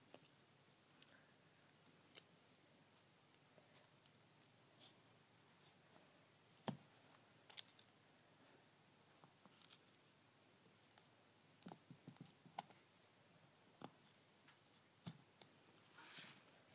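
Scattered faint clicks and small scrapes of a pry tool working around an iPhone 4's front panel, loosening it from its adhesive. One sharper click comes about seven seconds in, and a short scraping rasp comes near the end.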